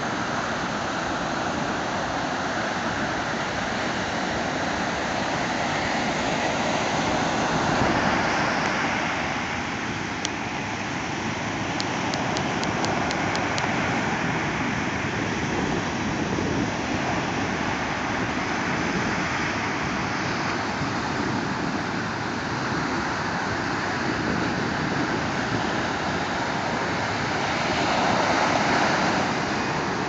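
Ocean surf breaking and washing up a sandy beach: a steady rush of water that swells louder about eight seconds in and again near the end as bigger waves break.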